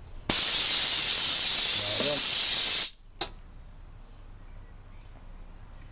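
Loud hiss of compressed air let out of the homemade compressor's tank, a converted fire-extinguisher bottle at about 8 bar. It starts sharply, runs for about two and a half seconds, cuts off abruptly, and is followed by one short puff.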